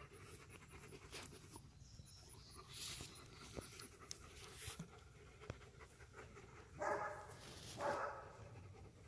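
Dog panting, with two louder breaths near the end.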